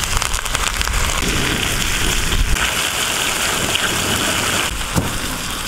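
Oil sizzling steadily under a fish frying on banana leaves on a large iron dosa griddle, with one short knock about five seconds in.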